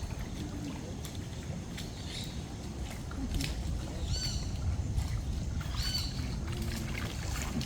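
Outdoor waterside ambience: a steady low rumble of noise, with a bird giving short high chirps a few times, about four and seven seconds in.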